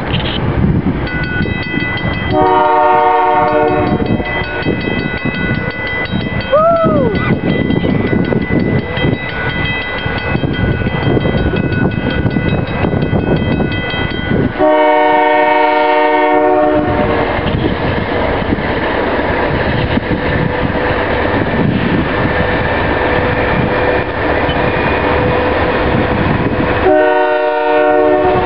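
Canadian Pacific Holiday Train locomotive air horn sounding three separate blasts, each about one and a half to two seconds long and roughly twelve seconds apart, over the steady rumble of the moving train.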